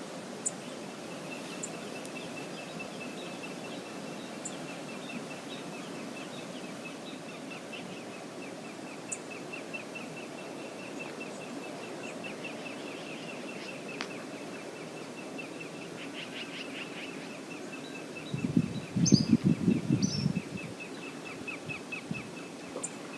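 Steady rushing of river water, with a rapid, even series of high chirps from a bird running through it. About eighteen seconds in comes a loud, choppy burst of low sound lasting about two seconds.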